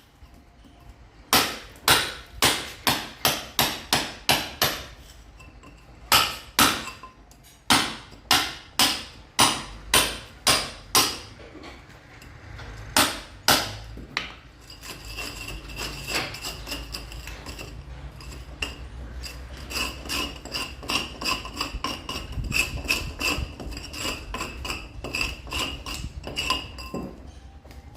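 Hammer blows on masonry, as in breaking concrete during building work: runs of loud strikes about two a second with short pauses. About halfway through the blows turn quieter and quicker, with a ringing tone over them.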